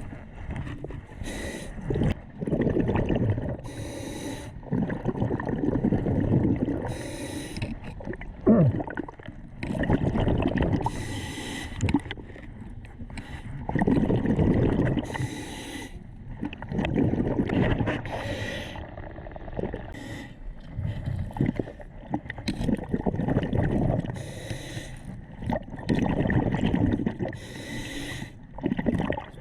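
A diver's heavy breathing: long noisy breaths about every three to four seconds, each with a short hissing rush.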